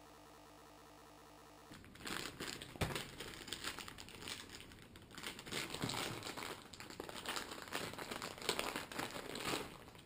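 Small clear plastic bags crinkling and rustling in irregular bursts, with a few sharper crackles, as they are handled and opened to take out a plastic camera mount. A faint steady hum plays before the crinkling starts, a little under two seconds in.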